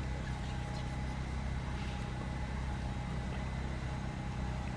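Steady low mechanical hum with faint steady high tones over it. It stays unchanged throughout.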